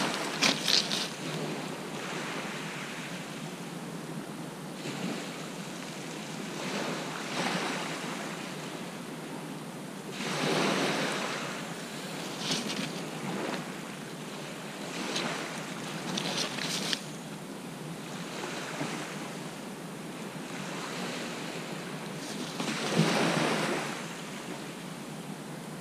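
Small waves breaking and washing up a shingle beach, a steady wash with a louder surge about ten seconds in and another near the end. A few short knocks and clicks near the start and in the middle.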